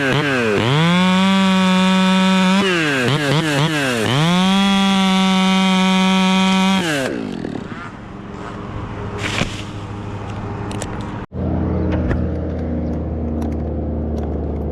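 Chainsaw running at full throttle. Its revs drop and climb back twice, then it is let off and falls away about halfway through. After that a lower, steady engine hum takes over.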